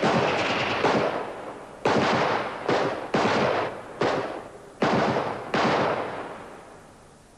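Gunshots fired one after another at uneven gaps of about a second, seven or so in all. Each shot has a long echoing tail, and the last tail dies away about a second before the end.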